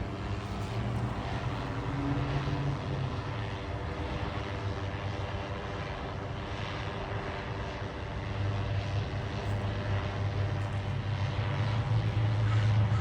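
Buzzing, chainsaw-like engine and propeller of an aircraft flying overhead, which the owners take for a huge drone. It gets louder about two-thirds of the way in.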